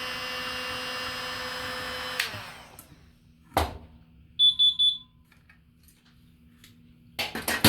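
Heat gun blowing with a steady whirring hiss as it shrinks heat-shrink tubing, switched off about two seconds in and winding down. A sharp click follows, then a short run of rapid high-pitched beeps, and a few clicks near the end.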